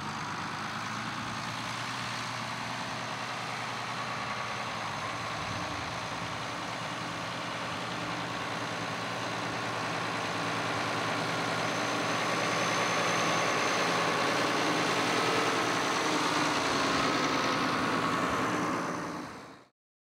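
Farm tractor's engine running steadily as the loader tractor handles round hay bales. It grows a little louder in the second half, then fades out just before the end.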